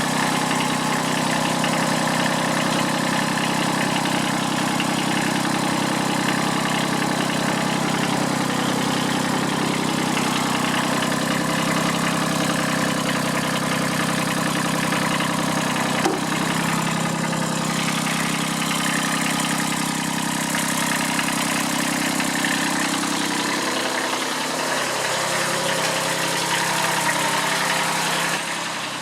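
Kubota B7001's three-cylinder diesel engine idling steadily, with a single sharp click about halfway through. In the last few seconds the engine note shifts and gets quieter.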